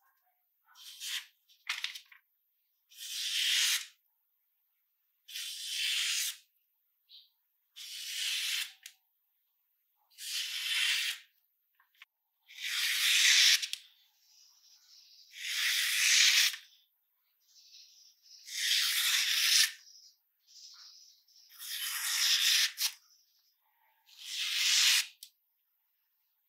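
A sharp knife blade, made from an old file, slicing through a sheet of paper about ten times, each cut a short hiss roughly every two to three seconds.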